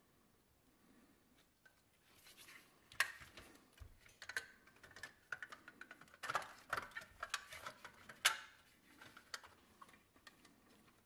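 Handling noise of a clear plastic window insert being pushed and fitted into a small red toy truck cab by gloved hands: scattered light clicks, taps and plastic scrapes. It starts about two seconds in, with the sharpest clicks about three, six and eight seconds in.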